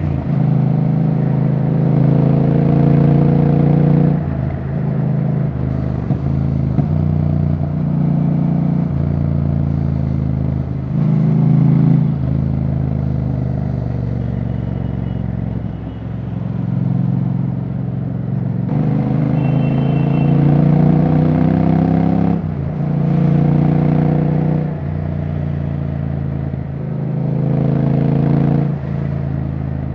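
Royal Enfield Bear 650's 648 cc parallel-twin engine running with no silencer fitted, ridden on the road. Its note rises under throttle and then drops off sharply, again and again through upshifts and roll-offs.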